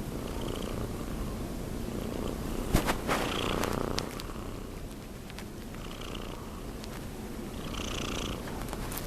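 Young cat snoring in its sleep: a steady rumbling rasp that swells with each breath, roughly every two to three seconds. A few sharp clicks about three seconds in are the loudest sounds.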